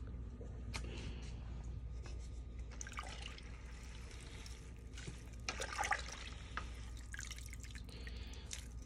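A slotted spoon stirring herbs through a large steel pot of liquid herbal decoction: faint sloshing and dripping, with scattered small splashes, the loudest about six seconds in.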